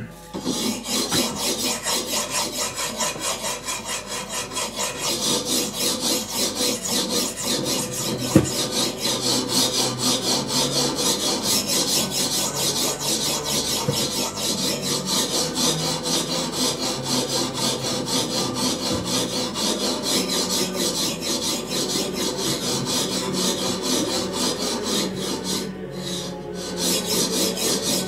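A knife blade in Elmax steel sawing through rope with rhythmic rasping strokes, about two a second, with a short pause near the end.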